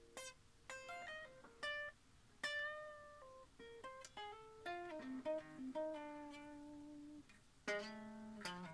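Electric guitar played clean: a phrase of separately picked single notes, each ringing and fading, with a few sliding notes in the middle. A chord is strummed near the end.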